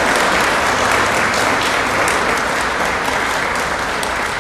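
Church congregation applauding: dense, steady clapping that eases off slightly toward the end.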